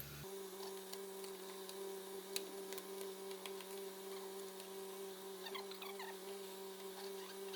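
Saab 9-3 Turbo engine idling, heard as a faint steady hum with a few light ticks and one sharper click about two and a half seconds in; it is running smoothly after the misfire repair.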